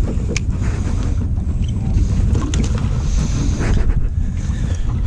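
Wind buffeting the microphone on a small open boat: a steady low rumble, with a few sharp clicks and knocks of handling.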